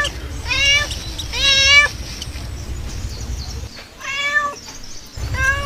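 Cat meowing repeatedly: four high meows, two close together, then a pause of about two seconds before two more. A steady low hum runs underneath and drops out briefly midway.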